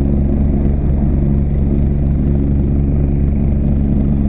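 Helicopter running on the ground: its engine and rotor make a steady low drone with a fast, even pulsing that holds constant throughout.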